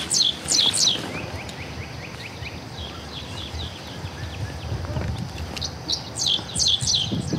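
A songbird calling: bursts of quick, high, downward-sweeping notes, one at the start and another about six seconds in, with fainter chirps between them.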